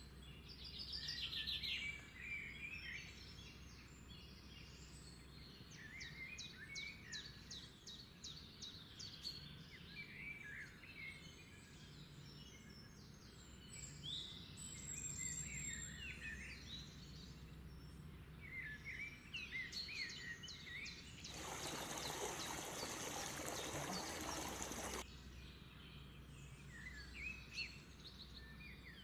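Small birds chirping and trilling faintly, on and off. Near the end a steady rushing noise, such as running water, cuts in suddenly for about three and a half seconds and cuts off just as suddenly.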